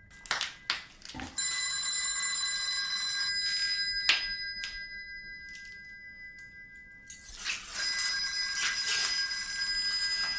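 Bare hands slapping and patting on a tiled floor among broken glass: a few sharp taps, then a rustling scrape of hands sliding over the tiles in the second half. Steady high ringing tones sound over it.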